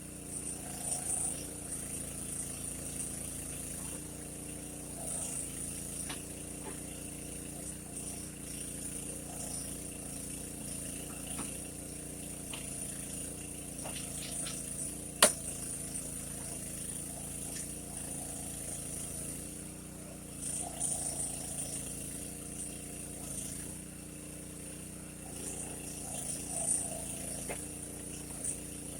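Mini backhoe's small engine running steadily, its pitch shifting slightly now and then as the load changes, with a sharp click about halfway through.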